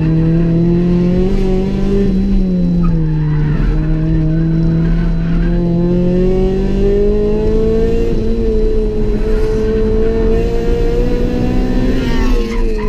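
Honda B18C 1.8-litre four-cylinder engine of a track-prepared Civic EG, heard from inside the stripped, caged cabin, running hard at high revs on track. Its pitch holds high, sags a little about two to three seconds in, and dips and climbs again quickly near the end.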